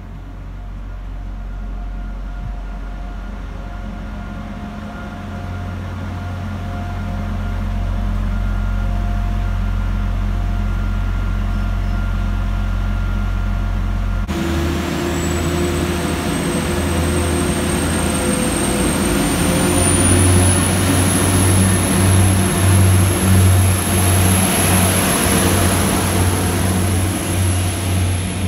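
Class 175 diesel multiple unit running with a steady low engine drone. After an abrupt change about halfway, a high whine rises and then holds, over a pulsing low engine throb that grows louder near the end.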